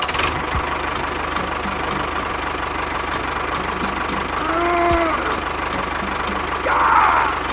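Small engine running steadily at idle with an even knocking pulse. About five seconds in, a brief tone rises and falls, and near the end there is a short rougher burst.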